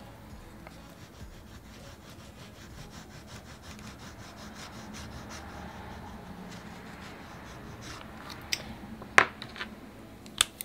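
Caran d'Ache Neo Pastel oil pastel stick rubbed over Bristol board in many short back-and-forth strokes, laying down colour. A few sharp clicks come near the end.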